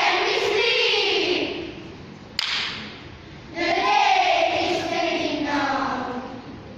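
A children's choral speaking group voicing together in unison, in long, drawn-out phrases that slide in pitch, with a single sharp knock about two and a half seconds in.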